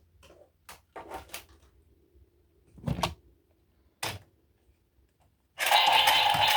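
Handling noises from toys being unboxed: a few short clicks and knocks, the heaviest about three seconds in. Music starts suddenly near the end.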